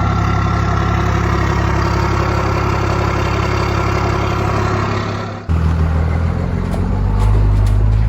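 Diesel truck engine idling steadily. About five and a half seconds in it cuts abruptly to a deeper engine sound, as from a second recording.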